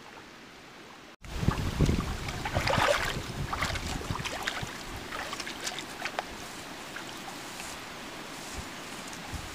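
People wading barefoot through shallow river water, with splashes and thumps from their steps that start loud about a second in and ease into a steadier sloshing and trickling of water.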